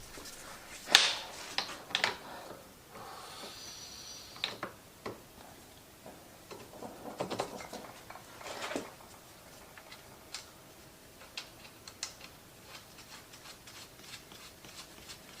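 Scattered clicks, taps and light knocks of tools and metal engine parts being handled, with a short scraping rub about three seconds in.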